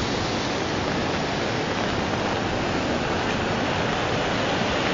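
Muddy floodwater rushing across a road in a steady, unbroken rush.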